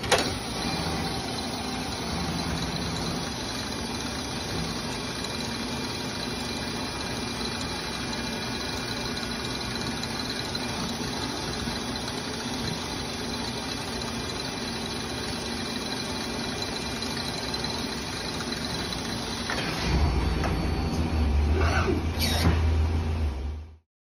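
1999 Mazak Multiplex 6200Y CNC lathe running, a steady machine hum with several high, constant whining tones. About twenty seconds in a louder low rumble joins, and the sound cuts off abruptly just before the end.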